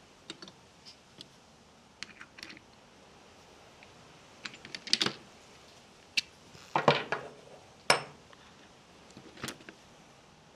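Tools and small metal parts being handled and set down during mountain-bike fork servicing: irregular clicks and short clatters, loudest in bursts about five, seven and eight seconds in.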